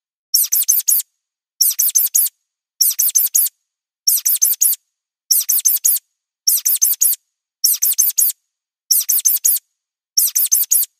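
High-pitched mouse squeaks played as a sound effect, in quick bursts of four squeaks, one burst a little more often than once a second with silence between.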